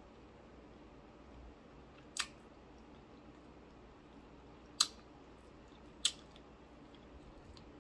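Close-up eating sounds: three brief, sharp crisp clicks as fried fish is picked at and chewed by hand, over a quiet room.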